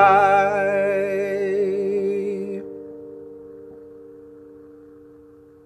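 A man's voice holds the song's last sung note with vibrato over a final chord on acoustic guitar. The voice stops about two and a half seconds in, and the guitar chord rings on, fading away.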